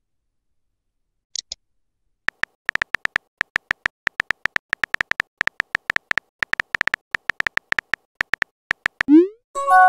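Chat-app typing sound effects: a short double click, then a long run of identical short high beeps, one per typed letter at an uneven typing pace. Near the end a quick rising swoop and a chime of several tones sound as the message is sent.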